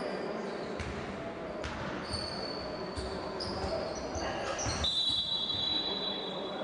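Basketball bouncing on a hardwood court during live play, with high squeaks from players' sneakers on the floor, one held for about two seconds near the end.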